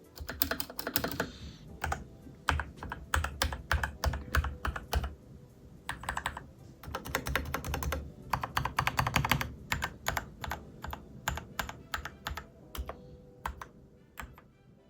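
Typing on a mechanical keyboard fitted with pudding keycaps (PBT tops over translucent ABS skirts): fast flurries of key clicks and clacks, thinning to scattered keystrokes near the end.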